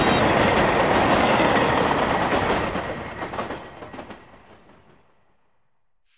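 Metro-North commuter train running past an elevated station platform, its wheels clattering on the rails. The sound holds loud for about two and a half seconds, then fades away to near silence as the train leaves.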